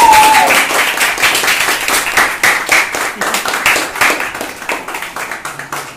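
Hands clapping in quick, steady applause, growing gradually quieter. A high voice calls out briefly at the start.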